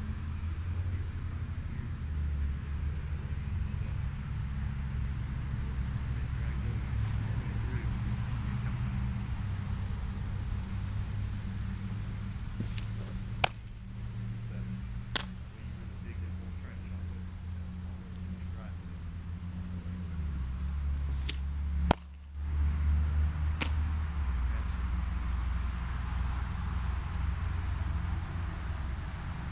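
Steady, high-pitched insect chorus droning without a break over a low rumble. A few sharp clicks or knocks cut in now and then, the loudest about two-thirds of the way through.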